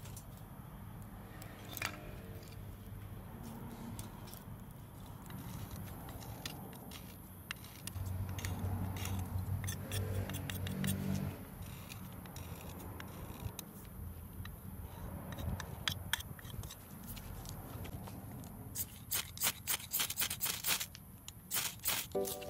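Knife blade scraping along a stick in short strokes, shaving off tinder. Near the end comes a quick run of sharp scrapes: a ferrocerium rod being struck, throwing sparks.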